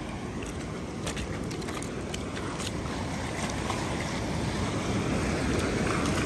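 Steady rushing noise of water and wind, growing slightly louder, with a few light clicks.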